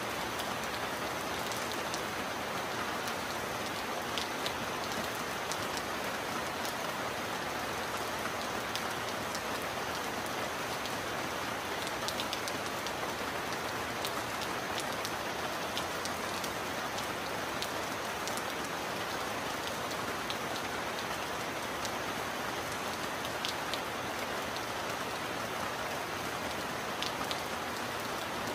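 Heavy rain falling steadily: an even hiss with scattered sharper drop ticks.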